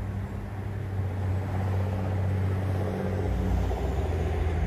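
An engine running steadily with an even low hum, a little louder from about a second and a half in.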